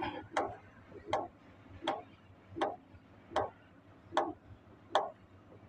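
Hand priming feed pump on a Komatsu PC200 excavator's fuel filter head, worked in and out in a steady rhythm to bleed air from the fuel system after a filter change. Each stroke gives a sharp click, about eight of them, one every three-quarters of a second.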